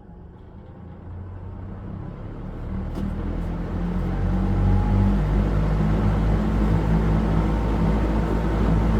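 Mitsubishi E-50S3 100 V industrial pressure exhaust fan spinning up after being switched on: its motor hum and rush of air rise over about four to five seconds, then run steadily at full speed.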